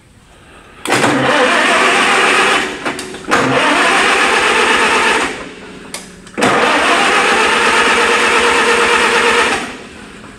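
Electric starter cranking the Farmall 300 Utility tractor's engine in three bursts of about two to three seconds each, stopping abruptly each time. The engine does not catch; it is being cranked without choke, and the crew suspects a sticking carburettor float.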